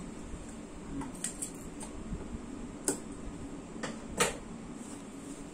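Scattered light clicks and taps from handling fabric and sewing tools, about six in all, the loudest about three and four seconds in, over a faint steady hum.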